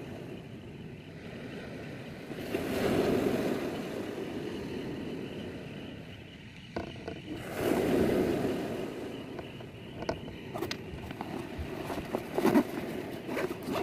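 Sea surf washing on the shore, swelling twice and ebbing between. Near the end there are a few small clicks and knocks of fishing gear being handled close by.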